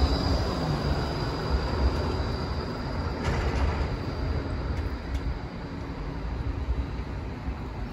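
E class tram rolling past on street rails: a steady low rumble with a high wheel squeal that fades away over the first few seconds, the rumble then continuing more quietly.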